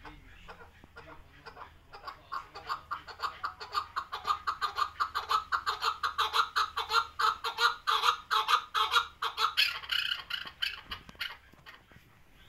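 Chukar partridge calling: a rapid run of repeated chucking notes that starts about two seconds in, builds louder, and dies away near the end.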